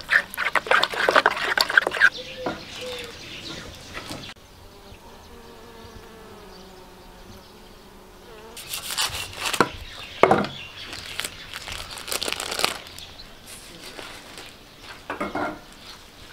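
A spoon stirring and scraping a yogurt-and-spice marinade in a wooden bowl for about two seconds. This is followed by a honeybee buzzing, a faint wavering hum that lasts until about halfway through. A few scattered sharp rustles and knocks come near the end.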